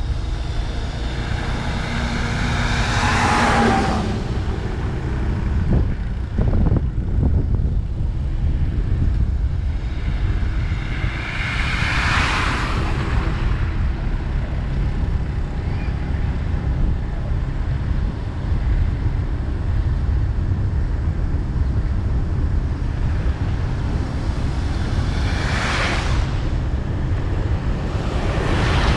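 Steady road and wind rumble from a vehicle travelling along a highway. Three other vehicles swell up and pass by: about three seconds in, about twelve seconds in, and near the end.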